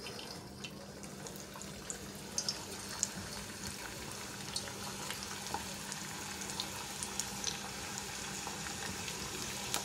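Raw kibbeh (quibe) deep-frying in hot oil in a small pan: a steady sizzle with scattered small pops and crackles, growing a little louder as more pieces go into the oil.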